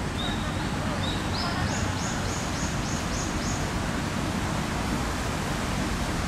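Steady rushing background noise, with a bird's run of about ten short high chirps in the first few seconds, evenly spaced and stepping up in pitch.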